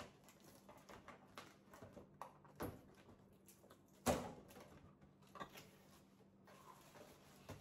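Cardboard box of a kitchen tool set being opened and the tools pulled out: faint rustling of packaging with a few sharp clicks and knocks, the loudest about four seconds in.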